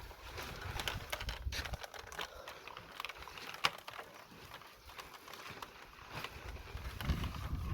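Wind rumbling on the microphone, with scattered small clicks and taps and one sharp crack about three and a half seconds in.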